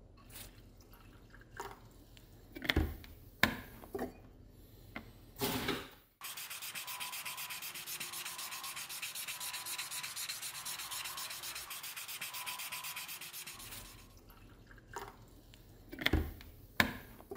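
Fine wet sanding of a mosaic Damascus steel hammer head: a steady, rapid rasping of abrasive on steel that starts abruptly and lasts about seven seconds. It is set between scattered knocks and clicks of the piece being handled.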